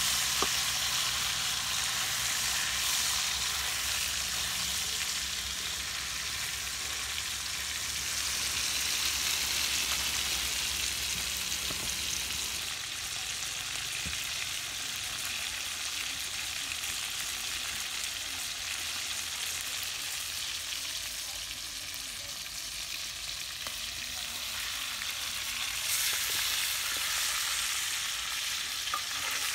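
Chicken leg quarters sizzling in hot oil in a steel wok, a steady frying hiss that swells a little near the end.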